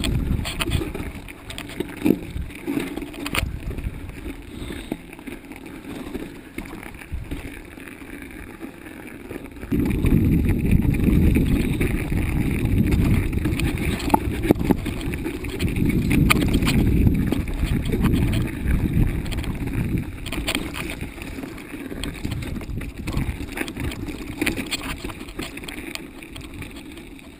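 Mountain bike ridden fast down a rough, rocky trail: wind rushing over the microphone and the tyres rumbling, with frequent clicks and rattles from the bike over rocks. The rush grows louder about ten seconds in and eases about ten seconds later.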